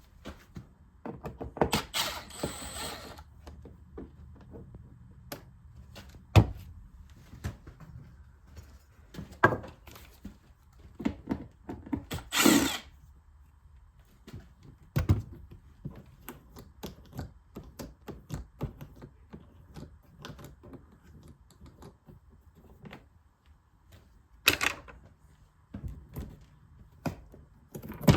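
Tools and metal parts knocking and clicking at irregular intervals during hands-on work. There are two short bursts of noise, one about two seconds in and another near the middle.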